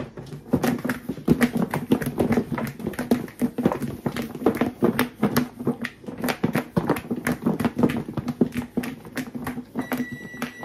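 Raw chicken pieces tumbling and thudding inside a lidded plastic mixing bowl as it is shaken to coat them in dry seasoning: rapid, irregular knocks and rattles that keep going without a break.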